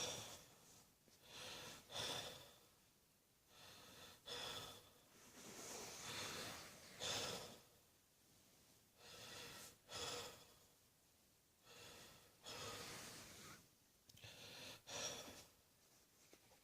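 A person's faint, audible breathing: slow noisy breaths in and out every second or two, with short pauses between them.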